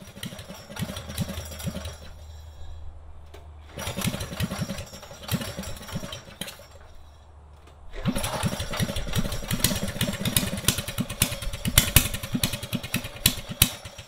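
Minibike's small single-cylinder engine running with its rear wheel up off the ground. It is revved up about four seconds in, eases back, then runs harder and louder from about eight seconds on.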